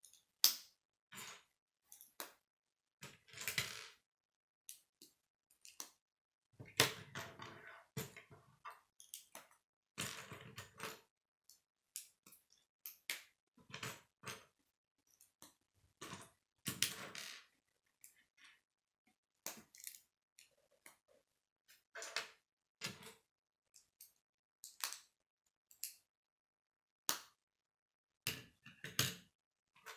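Plastic K'nex rods and connectors clicking as they are snapped together and handled. The clicks and clatters come irregularly, with busier stretches about a quarter of the way in, around the middle and near the end.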